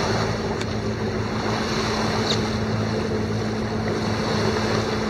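A Westsail 32 sailboat motoring under its inboard engine: a steady low engine drone under the rush of water along the hull, with some wind on the microphone.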